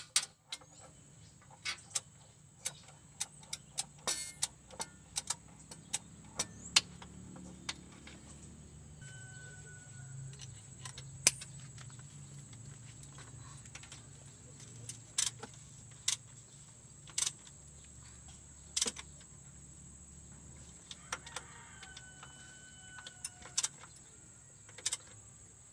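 Metal hand tools clinking and clicking irregularly as a 12 mm socket wrench and screwdriver work the mounting bolts of a diesel truck's injection pump.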